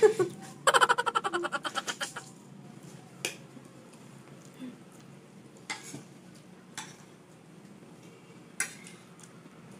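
A brief, rapidly pulsing high call about a second in, then a few light, scattered clicks of a metal fork against a plate of pasta.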